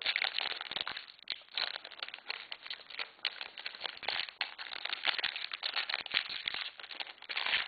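Foil trading-card pack being torn open and its wrapper crinkled by hand: a dense run of sharp crackles that swells and fades in clusters.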